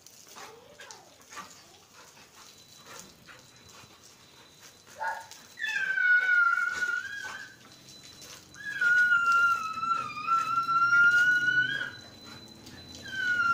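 A dog whining in long, high-pitched, drawn-out cries: a short one about five seconds in, then one of about two seconds and another of about three seconds, with a fresh one starting at the very end. The dog is snapping at the spray from a garden hose in excited play.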